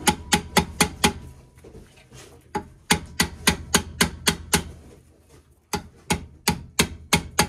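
Ball-peen hammer tapping metal at the dust cap in the centre of a VW Beetle's front brake drum, working the cap loose: three runs of quick, sharp taps, about four a second, with short pauses between them.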